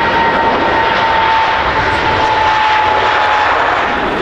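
Jet airliner passing close, its engines giving a loud, steady rush with a whine on top that slowly drops in pitch and fades near the end.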